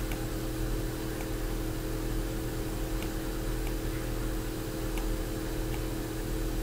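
Steady background hum of a few fixed tones over an even hiss, with a few faint, sharp clicks from a computer mouse scattered through.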